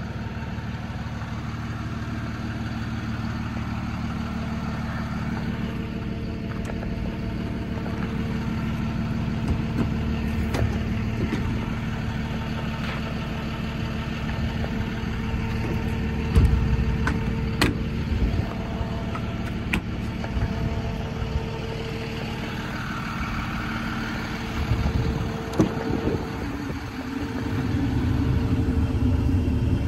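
Cummins 6.7 inline-six diesel idling steadily, with a few sharp clicks and knocks midway and the rumble growing louder near the end.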